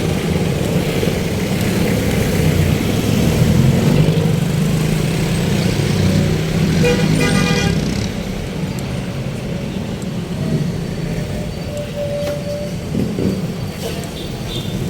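City road traffic: a steady rumble of vehicle engines and tyres, with a horn sounding for about a second roughly halfway through.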